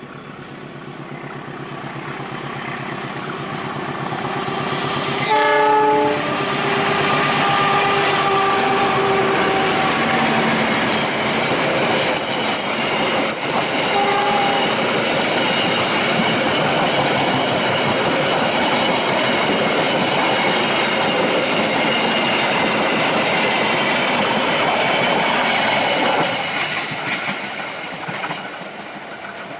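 A diesel-electric locomotive hauling a passenger train comes closer and passes. Its horn sounds about five seconds in, as a chord of several held notes, and then the coaches roll past with wheels clattering over the rail joints, fading near the end.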